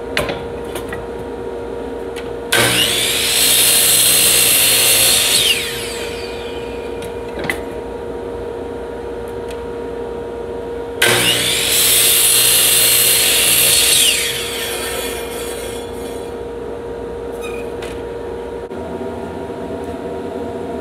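DeWalt compound miter saw making two crosscuts through a wooden board, each starting suddenly and lasting about three seconds, then the blade winding down with a falling whine. A steady hum runs underneath, with a couple of light knocks between the cuts.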